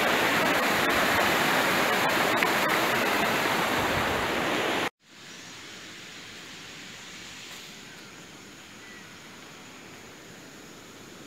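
Steady, loud rushing noise like flowing water. It cuts off abruptly about five seconds in, leaving a much quieter, even outdoor background hiss.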